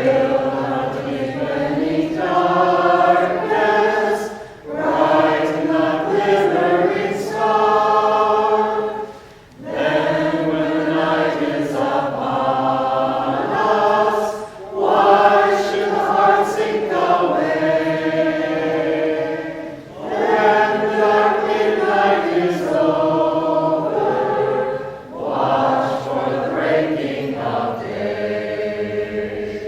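A vocal group singing a song together in harmony, in sustained phrases of about five seconds with a short breath between each.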